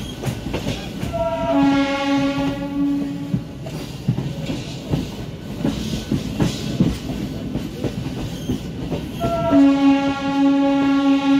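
MEMU electric train's horn blown twice: a blast of about two seconds, then a longer one starting near the end. Each blast opens on a brief higher note. Between the blasts the wheels clatter over the rail joints as the train runs.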